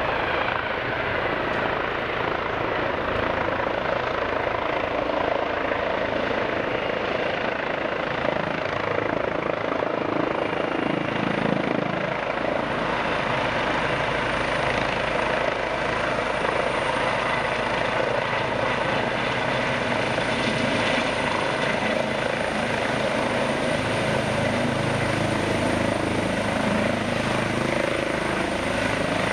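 Airbus EC135 air-ambulance helicopter hovering low and landing, its main rotor and twin turbines running steadily. A thin high turbine whine comes up about halfway through and rises slightly.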